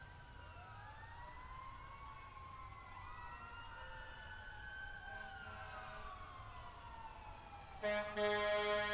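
Several emergency-vehicle sirens wailing at once, their pitches rising and falling and crossing one another. Near the end a much louder horn with a deep, steady chord sounds.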